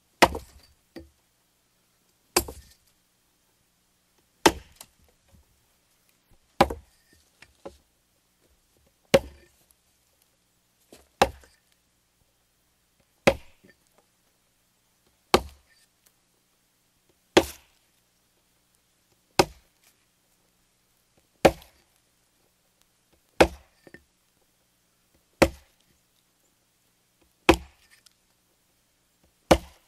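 Chopping into a tree: sharp wood chops at a steady pace of about one every two seconds, some followed by a faint smaller knock.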